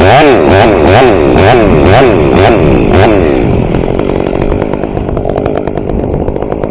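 Stihl chainsaw revved up and down about twice a second for roughly three seconds, then settling to a steadier, lower running note.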